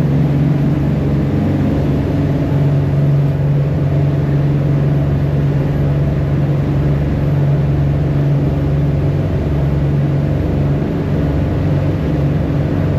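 Jet-drive gillnetter's engine running steadily under way, a constant low hum with no change in speed.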